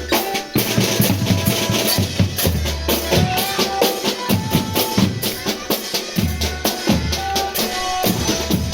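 Drum band music: a fast, busy beat of snare and bass drums with heavy low bass and a few short high melodic notes over it.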